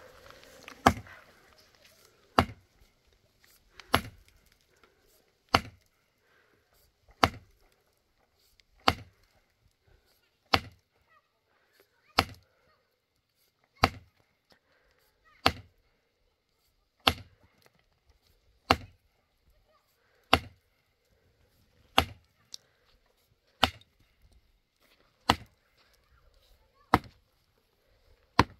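Heavy hand tool striking stone to break it up: a steady run of about eighteen sharp blows, one every second and a half or so.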